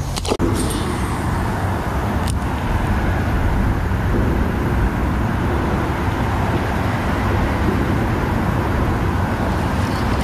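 Small boat's motor running steadily while the boat is underway. Just after the start, a short sharp splash as the released bass hits the water.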